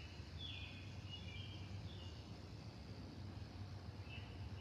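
A songbird singing two short phrases of chirping, stepped notes, one at the start and one near the end, over a steady low background rumble.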